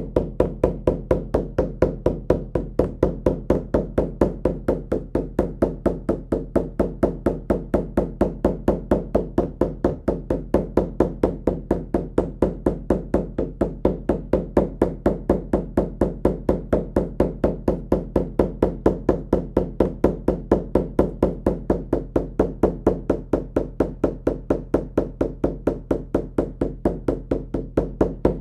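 Shamanic hand drum beaten in a steady, even rhythm of about four beats a second, each stroke a deep ringing thud: the monotonous drumbeat that carries a shamanic journey.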